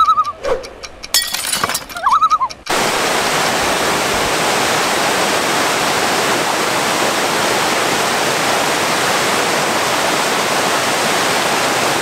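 Waterfall rushing down sloping rock slabs, a loud steady hiss of falling water that cuts in suddenly about three seconds in.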